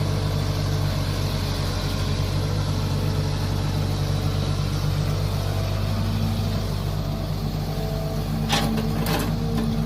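Mini excavator engine running steadily while digging, with two short knocks about half a second apart near the end.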